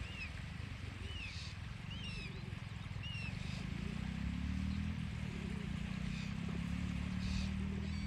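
Small birds chirping in short, separate rise-and-fall calls, mostly in the first half, over a low steady hum that grows louder from about three seconds in.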